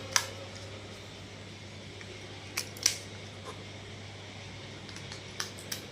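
Sharp small clicks from handling a smart door lock's battery compartment as batteries are fitted: one just after the start, a close pair about halfway through, and two more near the end.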